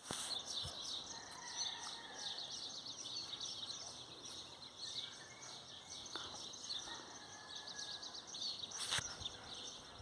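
Many small birds singing together in a dense, continuous chorus of rapid chirps and twitters, with a few longer whistled notes. A single sharp knock about nine seconds in.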